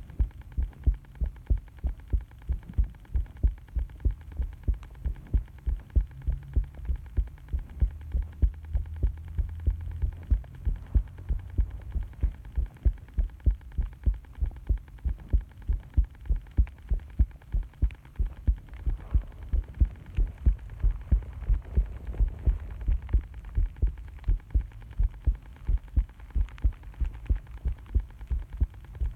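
Human heartbeat, a steady, regular run of low thumps over heavy constant background noise.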